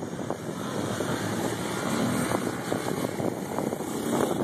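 A sport quad (ATV) engine running as the quad rides toward the microphone, growing louder over the first couple of seconds, with wind on the microphone.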